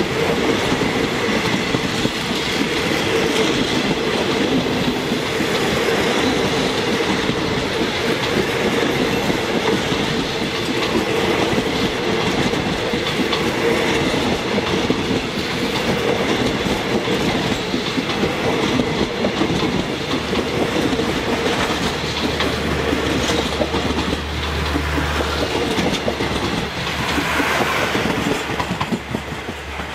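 Passenger coaches of a Thai rapid train rolling past close by: a steady rumble of wheels on the rails with clickety-clack over the joints. About two-thirds of the way in, a low steady hum joins.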